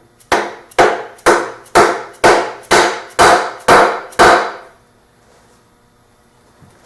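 A hammer tapping a part into the old lathe: about nine loud, evenly spaced blows, roughly two a second, each ringing briefly, stopping a little past halfway through.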